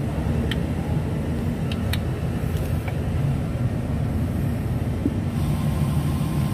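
Toyota Fortuner's engine idling steadily, with a few faint light clicks in the first few seconds.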